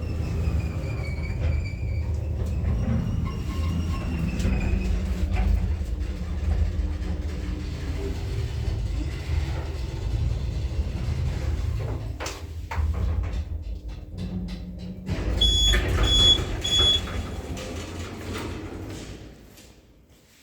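KMZ passenger lift car travelling in its shaft at 1 m/s: a steady low rumble with a faint wavering squeal in the first few seconds. Three short high beeps sound about two-thirds through, and the rumble then dies away as the car comes to a stop.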